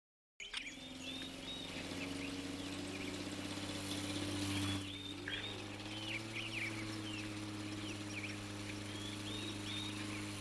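Birds chirping over a steady low hum, starting about half a second in after a moment of dead silence.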